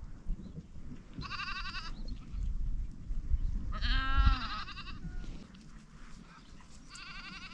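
Goats bleating in a grazing herd: three separate wavering bleats a few seconds apart, each under a second long.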